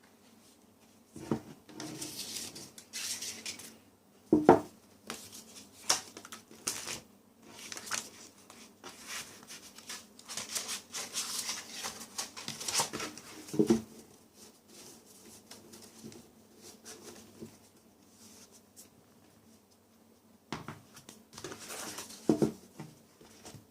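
Hands handling a photo book and its paper and plastic packaging: irregular rustling broken by several sharp taps and knocks.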